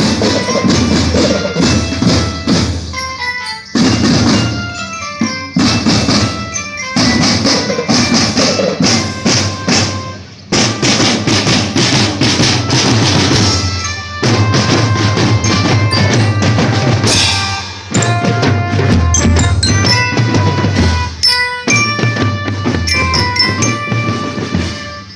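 A school marching drum band playing: bass and snare drums beating under a bright bell-lyre melody. The music drops out briefly several times.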